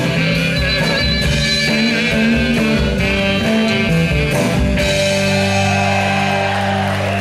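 Live rock band playing the instrumental end of a song with drums and guitar. About five seconds in, the beat stops and the band holds a sustained final chord.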